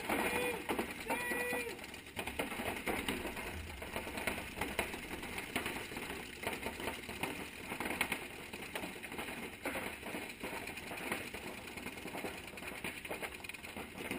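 Paintball markers firing in rapid strings of pops, several guns shooting at once in a near-continuous patter. Two short pitched calls come within the first couple of seconds.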